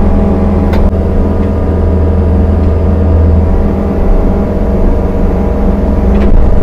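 Kobelco SK55 mini excavator's diesel engine running steadily while grading dirt, with two brief sharp knocks, about a second in and near the end.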